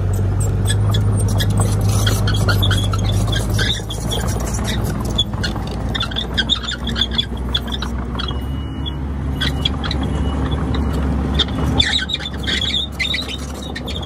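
Komatsu D31PX crawler bulldozer's diesel engine running, with the steel tracks squealing and clicking rapidly as it moves. The engine note drops about four seconds in.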